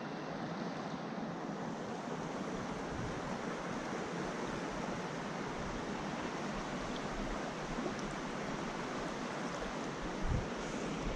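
Steady rush of creek water running over shallow riffles. A brief low thump near the end.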